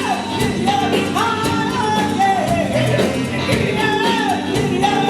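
Live band music: drums and bass keep a steady groove under a melodic lead line, between sung verses of a soul song.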